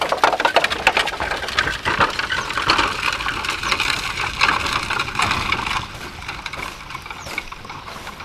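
Horse-drawn wooden cart rattling and clattering over a dirt track as it pulls away, a dense run of knocks and creaks that drops off sharply about six seconds in.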